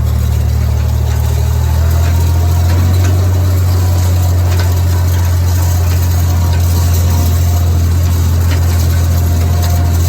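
Oliver 1750 tractor engine running steadily at a low, even speed, picking up slightly about two seconds in.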